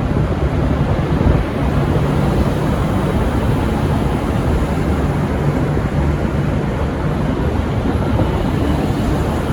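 Diesel engines of a V/Line VLocity railcar set running as the train pulls out: a steady, loud low rumble with no horn sounding.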